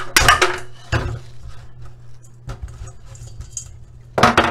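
Hammer striking a dry coconut in a metal colander in a steel sink, cracking its shell: a few sharp knocks with a metallic clatter, spaced over the seconds, the loudest pair near the end.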